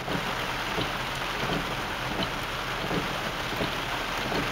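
Heavy rain falling on a car, heard from inside the cabin: a steady patter of drops on the windshield and body.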